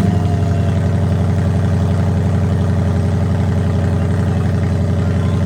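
Ford Mustang GT's V8 settling from its start-up flare into a steady, loud idle. It is running with the cat-back exhaust removed, so there are no mufflers.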